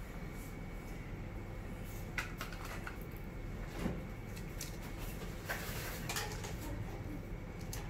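Plastic toys being handled and set down: a few scattered light clicks and knocks over a low steady background hum.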